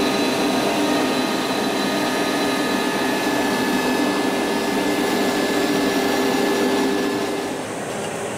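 CNC router spindle running with its dust extraction, a steady whine over a vacuum rush, milling a square pocket into an MDF spoilboard. The cutting ends about seven and a half seconds in and the sound drops to a quieter hiss.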